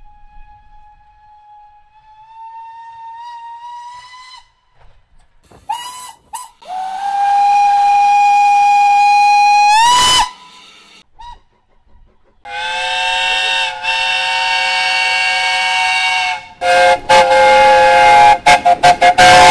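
A series of train whistle blasts. First a faint whistle sliding slowly up in pitch, then a long loud single-note whistle with a hiss of steam that bends upward as it shuts off. Then a chord of several notes held for about four seconds and sounded again in a run of quick short blasts near the end.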